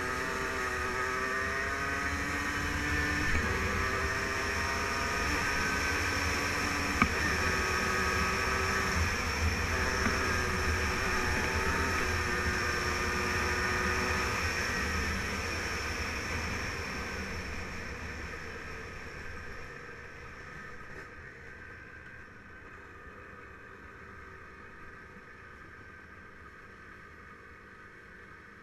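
Yamaha Blaster 200 quad's two-stroke single-cylinder engine running under way, its pitch climbing and stepping through gear changes. About two-thirds of the way through it quietens to a lower, softer running for the rest.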